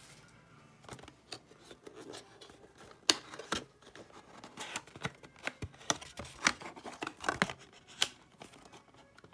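Irregular sharp clicks and snips of trading-card packaging being worked open by hand.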